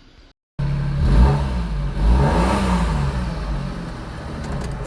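A car engine starts about half a second in and revs, its pitch rising and falling twice over a deep, steady rumble.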